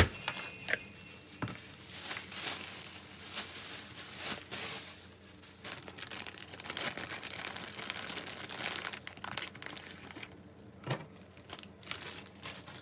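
Plastic packaging crinkling and rustling in irregular bursts as food is handled on a counter, with a sharp knock at the very start and a few light clicks.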